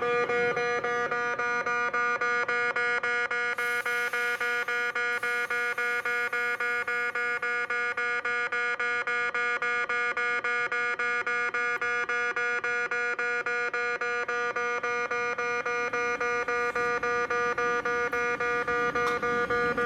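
Railway level-crossing warning bell ringing in a fast, steady, evenly repeated clang on a single pitch with overtones. A brief hiss comes about four seconds in.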